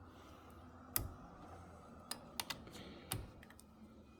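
A few light, scattered clicks and taps, about five, of small hardware being handled while a battery terminal is fitted.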